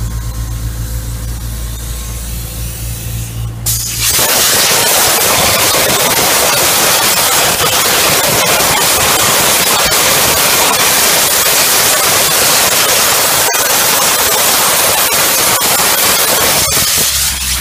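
Dustless Blasting DB500 wet abrasive blaster. Its compressor engine runs steadily. About four seconds in, the nozzle opens with a loud, steady hiss of water and shredded plastic media stripping paint from a rocker cover. The hiss cuts off just before the end, and the engine hum comes back.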